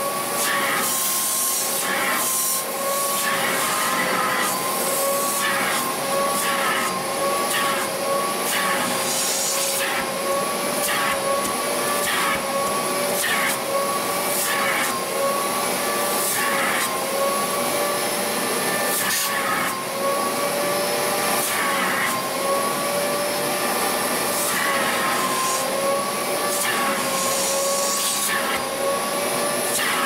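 Wet-extraction vacuum cleaner running with a steady, slightly wavering motor whine, its nozzle sucking water and dirt out of fabric car-seat upholstery, with short hissing surges about once a second as the nozzle is stroked across the seat.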